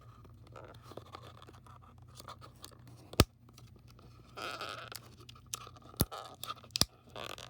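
Crinkling and scratching of a trading-card pack's plastic wrapper being handled and worked at to open it, with a few sharp clicks, the loudest about three seconds in and two more near the end.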